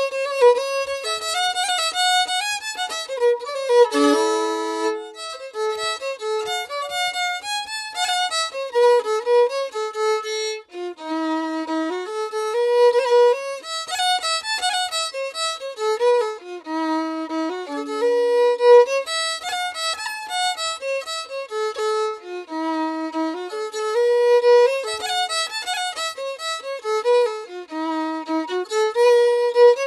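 Background music: a violin tune, one melodic line of quick notes moving up and down.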